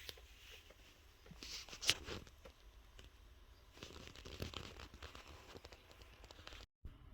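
Faint rustling, crinkling and light taps of sneakers and their packaging being handled, with one sharp click about two seconds in. The sound drops out completely for a moment near the end.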